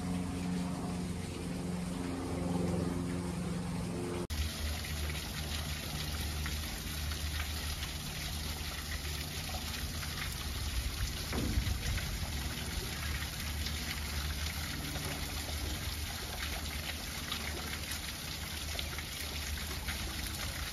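Small artificial waterfall trickling and splashing down a rock face into a pool: a steady watery hiss over a low hum. The water is clearer and more even from about four seconds in.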